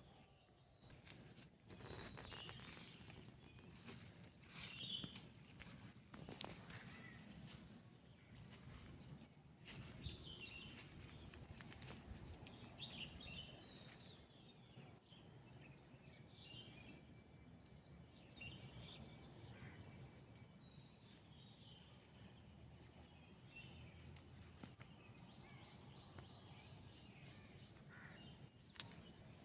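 Faint outdoor ambience: insects chirping in a steady, fast-pulsing chorus, with scattered short bird calls over a soft low rumble.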